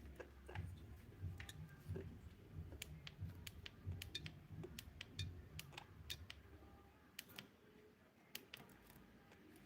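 Faint short clicks and ticks from budgies, scattered irregularly a few times a second, over a soft low rumble.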